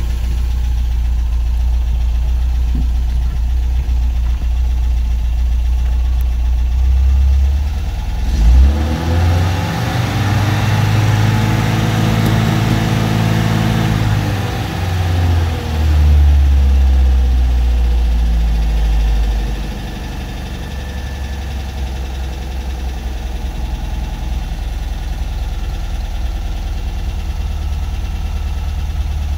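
MGB GT's 1.8-litre B-series four-cylinder engine, warmed up, idling steadily, heard from inside the cabin. About eight seconds in it is blipped, then revved up and held for several seconds before dropping back to idle, which settles a little quieter near twenty seconds in.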